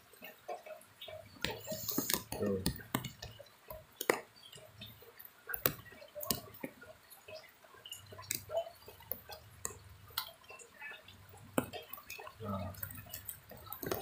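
Water dripping and splashing lightly in a tub holding live snakehead fish, with many scattered sharp drips and small splashes at irregular intervals.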